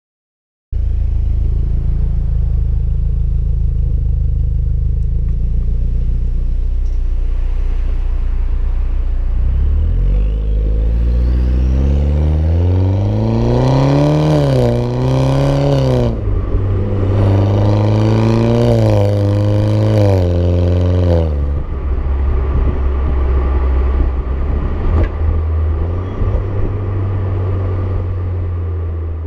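BMW F20 116i's 1.6-litre turbocharged four-cylinder through a Supersprint aftermarket exhaust. It starts at a steady low drone, then the revs climb and waver, drop about 16 seconds in, climb again, and fall back to a steady drone about 21 seconds in.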